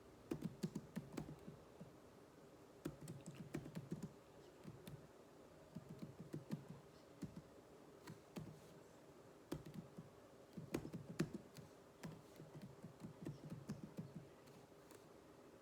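Computer keyboard keys being typed on in quick runs with short pauses between them, as in a typing drill.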